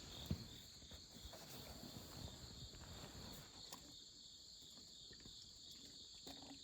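Faint night chorus of crickets and other insects, a steady high trilling that pulses slightly, over low rustling, with one small knock about a third of a second in.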